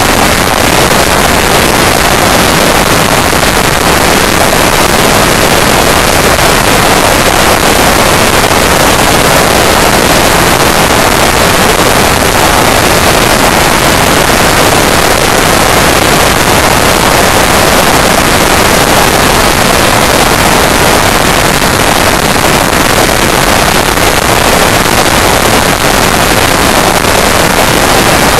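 Loud, steady wind rush over the microphone of a camera on a Honda Deauville NT650V motorcycle travelling at motorway speed, with no engine note standing out from the noise.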